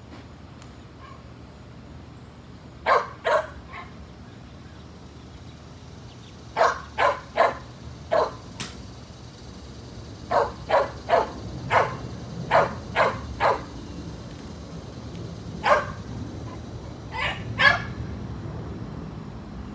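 A dog barking, about fifteen short barks coming singly and in quick runs of two to four, over a low steady hum.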